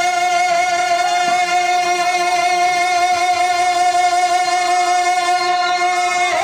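One long note held at a steady pitch through a microphone and PA, with faint wavering overtones above it.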